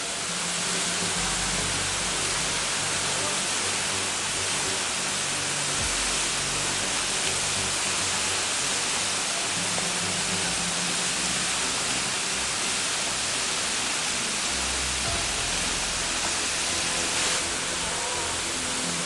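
Steady rushing hiss of falling water from the Sopota waterfall, with soft background music whose low sustained notes change every several seconds.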